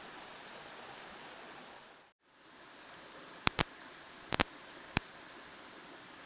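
Steady rushing outdoor ambience in a forest, which drops out for a moment about two seconds in. In the second half come five sharp cracks, two quick pairs and then a single, as twigs snap underfoot while she pushes through thick undergrowth.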